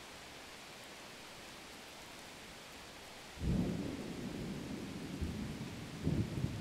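A low rumble sets in suddenly about halfway through over a faint steady hiss, carries on, and swells twice more near the end.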